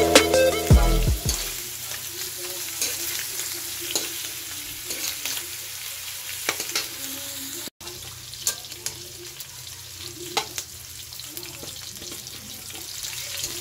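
Cubes of pork belly sizzling as they fry in a wok, with a slotted metal spatula scraping and clinking against the pan as they are stirred. Background music cuts off about a second in.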